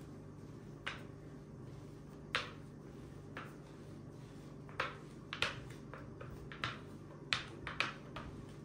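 A rolling pin working a block of laminated dough on a glass countertop. It makes a scatter of light, irregular clicks and taps, more of them in the second half, over a faint steady hum.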